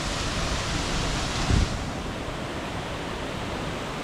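Steady rushing roar of a waterfall, with a brief low thump on the microphone about one and a half seconds in.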